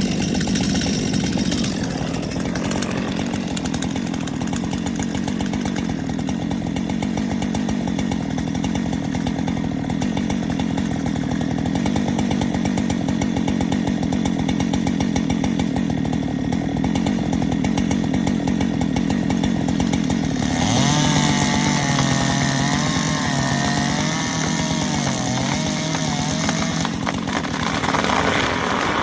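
Two-stroke chainsaw running steadily at high revs while cutting into a large camphor trunk. About twenty seconds in, the engine note changes and a higher, wavering pitch runs for several seconds.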